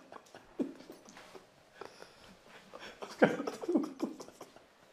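A man's stifled, nervous laughter: short breathy giggles, with a louder burst of laughing about three seconds in.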